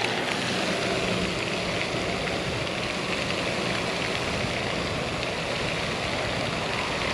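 Steady rushing of a pond aerator fountain's spray falling back onto the water.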